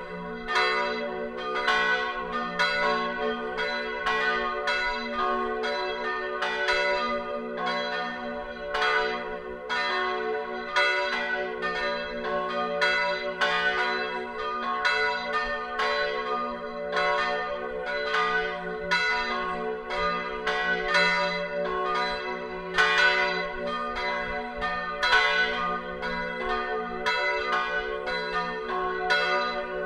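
Full peal of the church's three bells, tuned F-sharp, B and D-sharp and cast in 1582, 1604 and 1947, ringing together. The strikes overlap in an uneven stream of about two to three a second over a steady humming ring.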